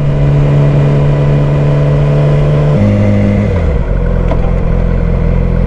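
Sportbike engine running at a steady note, then stepping down in pitch about three seconds in as the rider slows and shifts, and settling to a lower note. A low rumble of wind and road noise on the helmet-camera microphone comes up near the end.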